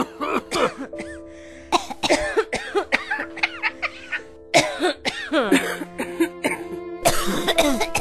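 A person coughing again and again in short, closely spaced coughs, over background music with held notes.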